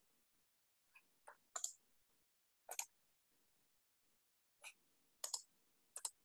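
About seven faint, short clicks at uneven spacing from a computer being operated, in a near-silent small room.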